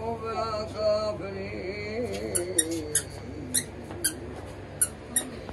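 A toddler's wordless babbling and cooing, in wavering high-pitched sounds over the first few seconds. A handful of sharp clicks or taps follow from about the middle.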